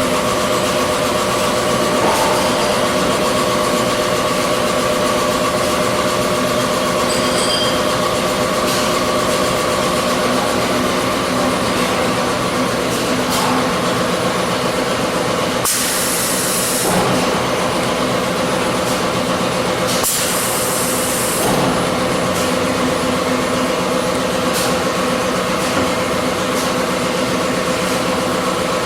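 Steady machine hum of an industrial spot-welding robot cell, with two short hisses, about 16 and 20 seconds in.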